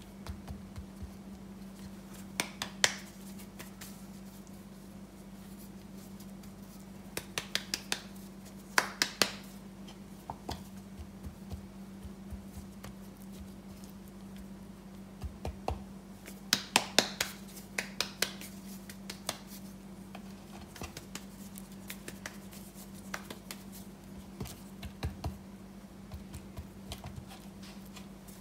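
Hands dusting flour over rolled thin pork slices in an enamel tray. Soft pats and rustling are broken by several bunches of sharp little clicks where fingers and meat touch the tray, over a steady low hum.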